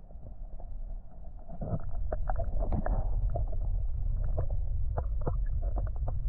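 Muffled sound of river water heard from underwater: a low rumble of the current, growing louder about two seconds in, with many small scattered clicks and ticks.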